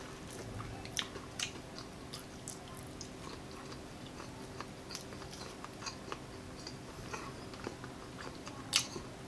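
Close-miked biting and chewing of a crispy breaded pork chop: irregular crunches and mouth clicks, with a sharper crunch near the end.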